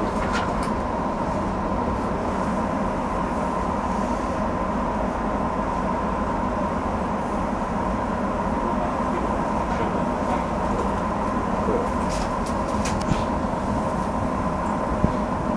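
Steady hum of a stationary 205-series electric train with a steady high tone in it, heard from the driver's cab as it stands at a platform. A few faint clicks come about twelve seconds in.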